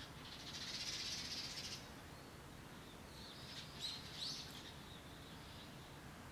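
Small birds calling: a short, grainy, buzzy burst about half a second in, then a few quick rising chirps about four seconds in.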